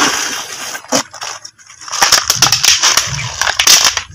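Crackling, crunching handling noise of an eel trap being picked up and worked open. It brings a dense run of sharp clicks and rustles, loudest in the second half.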